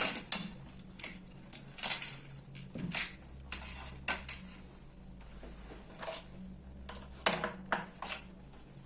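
Scattered sharp clicks and light metallic taps from small metal and plastic parts being handled while a hair clipper's on/off switch is taken apart. The loudest tap comes about two seconds in.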